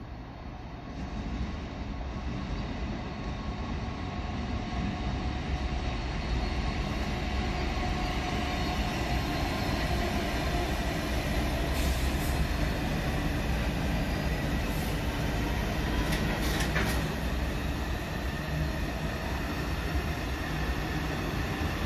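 Freightliner diesel-hauled freight train passing through the station: a steady rumble of wheels on rail that builds as it draws near, then holds, with faint high ringing wheel tones and a few sharp clicks about halfway through.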